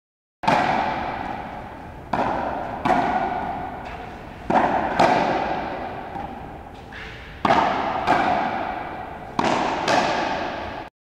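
Frontenis rally: a rubber ball struck by stringed rackets and smacking off the front wall, about eight sharp hits, some in quick pairs, each ringing on in the echo of the large court.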